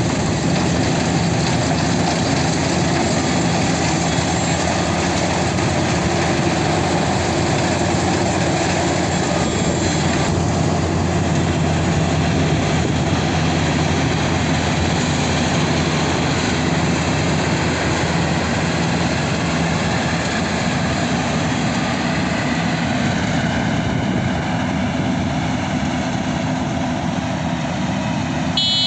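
Maxxi Bhimo 102 rice combine harvester's diesel engine running steadily with a constant drone, without change in pace.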